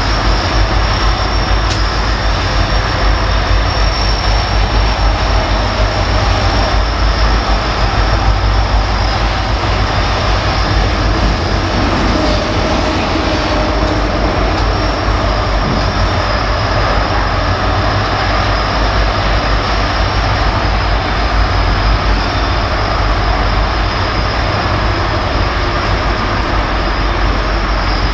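Train passing close by, its railcars rolling along the rails in a steady, unbroken run of wheel and rail noise.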